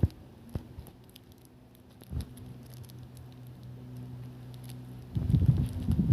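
Small knocks and handling noise of art supplies being picked up and moved about, with a burst of close, low rubbing and thumps near the end.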